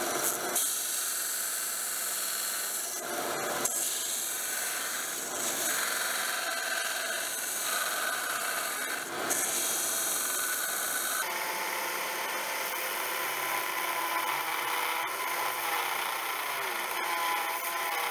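Small bench belt sander with a narrow belt running while a leaf-spring steel blank is pressed against it and ground: a rough grinding hiss over the motor's steady hum. The grinding changes abruptly several times.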